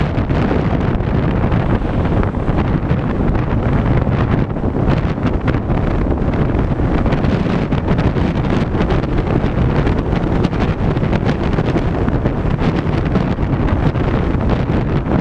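Car driving at highway speed, heard as a steady, deep rush of wind buffeting the microphone together with tyre and road noise.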